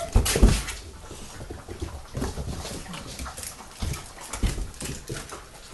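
A litter of puppies playing and scuffling on a wooden floor: scattered clicks and knocks of paws and bodies, loudest in the first half second, with small puppy whimpers and grunts.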